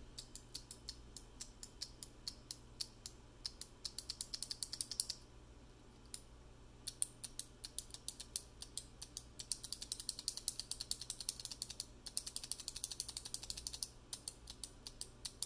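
RisKey V2 keyboard switch pressed over and over, giving sharp, quite clicky clicks. The presses come singly at first, then in fast runs, with a pause of about a second and a half near the middle.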